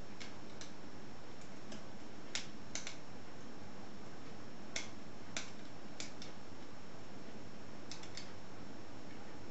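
Lever lock picks working inside an ERA Viscount 5-lever curtain mortice lock: irregular light metallic clicks and ticks as the levers are lifted and set, over a steady hiss.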